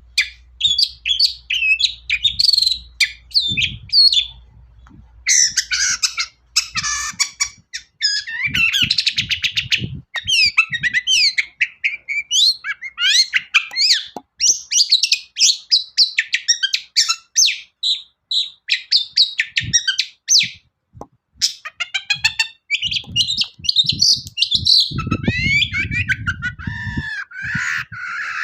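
Long-tailed shrike (cendet) singing a fast, varied song: a continuous stream of sharp chirps, slurred whistles and rapid trills with only short pauses. A few low thumps come in near the end.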